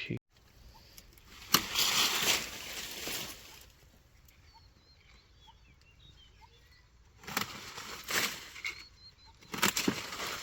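Leafy branches rustling as they are handled during pruning, in three stretches, with a sharp snap about a second and a half in.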